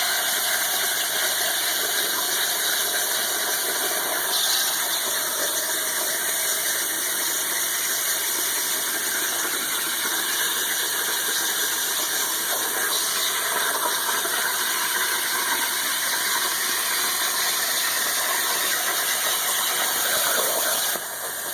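CNC plasma torch cutting 3/16-inch aluminium plate: a steady, loud hiss with high whining tones, the level dropping near the end.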